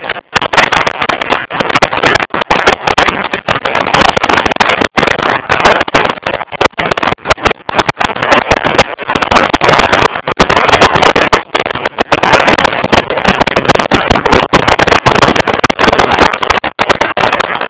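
Wind buffeting the microphone of a camera on a motorcycle riding at road speed, with the motorcycle running beneath it: a loud, choppy rush broken by many brief dropouts.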